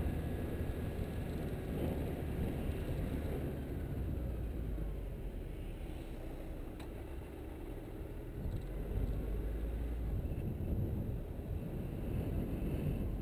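A car driving along an asphalt road: a steady low rumble of engine and tyre noise, easing a little around the middle.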